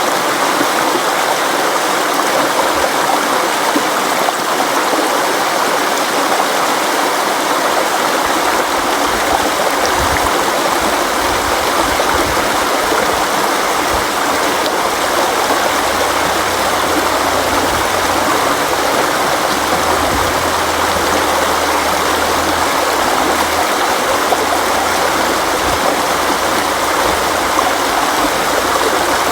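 River water flowing steadily over rocks: a continuous, even rushing with no pauses or changes.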